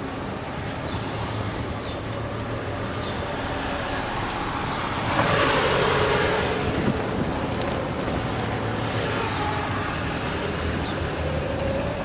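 Street traffic noise with car engines running. A louder rush of tyre and engine noise swells about five seconds in as a car passes close, then fades.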